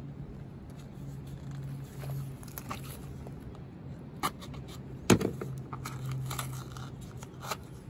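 A cardboard baking soda box being handled and slit open with a utility knife, with scraping and rustling. A sharp knock about five seconds in, as the knife is put down on the wooden table. A steady low hum runs underneath.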